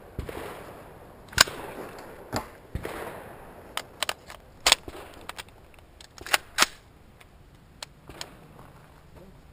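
Scattered gunshots, about a dozen sharp cracks at irregular intervals, some trailing a short echo.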